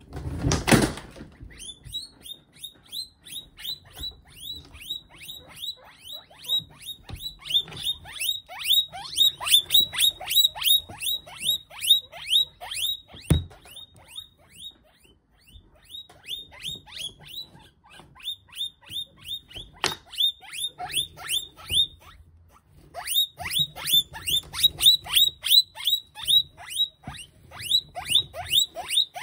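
Guinea pig squealing over and over in distress, short high squeals that fall in pitch, about two or three a second, while held by a monitor lizard, with a few short pauses. A short loud rustling thump in the first second.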